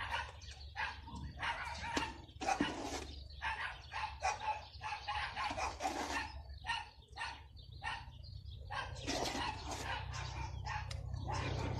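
A dog barking over and over, many short barks in quick, irregular succession.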